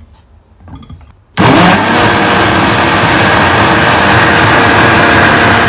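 Countertop blender switching on about a second in and running at speed, a loud steady motor whine with churning, blending a runny muffin batter of eggs, oil, peaches and sugar.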